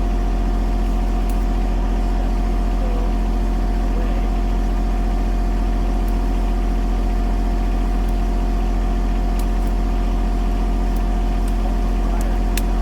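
John Deere compact tractor's diesel engine running steadily at a constant speed, a loud, even hum.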